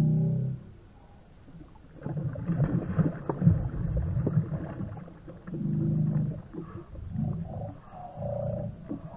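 A hooked bass thrashing at the surface beside a kayak, a burst of splashing from about two to five seconds in. Short, low, drawn-out tones come before and after it.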